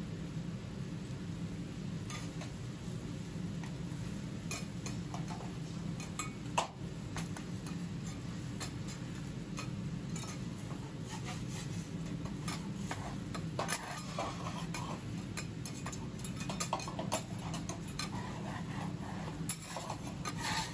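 Metal spatulas (kote) clicking and scraping on a steel teppan griddle as an egg is spread and an okonomiyaki is worked, in irregular strokes that come more often in the second half. A steady low hum runs underneath.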